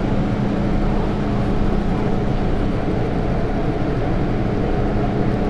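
Steady rumble and hum inside an MTR M-train carriage, with a constant low droning tone under an even noise.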